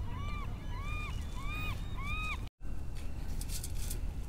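A bird calling five times, about two a second, each call a rising-and-falling note. After a brief break near the middle come light clicks and rattles of finds moving in a metal sand scoop.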